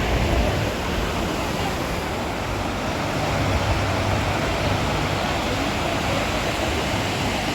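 Steady rushing of a fast-flowing river, an even roar with no breaks.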